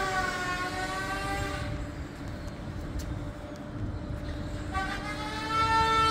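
A long horn-like tone, several pitches sounding together, sliding slowly down over the first second and a half, thinning through the middle and swelling again near the end.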